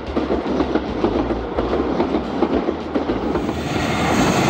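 Railway wheels clacking over rail joints as a train rolls past, the clickety-clack of jointed, unwelded rail. Near the end it gives way to a smoother running noise of a train on welded rail.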